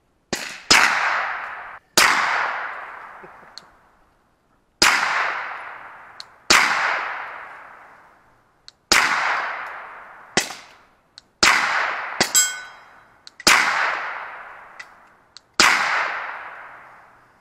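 Suppressed Glock pistol firing roughly eleven single shots, a second or two apart, each shot a sharp crack followed by a long echo dying away. About two-thirds of the way through, one shot is followed by a short metallic ring.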